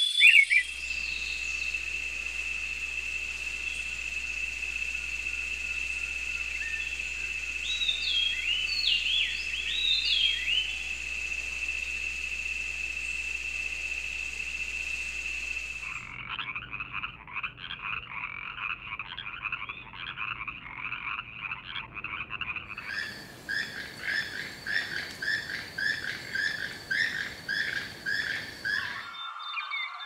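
A steady high insect drone with a few bird chirps about a third of the way in. From about halfway, frogs call in rapid pulsed trains; a higher, faster chorus takes over later and cuts off just before the end.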